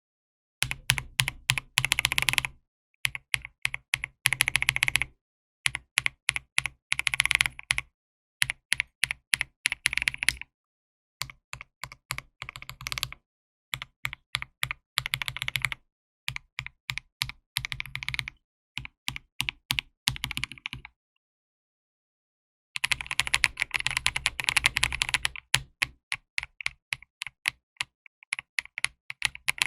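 Typing on a KBD67 mechanical keyboard with Akko keycaps in a switch sound test, a rapid clatter of keystrokes in short bursts broken by brief silences. There is a longer pause about two-thirds of the way through, followed by the longest and fastest run of typing.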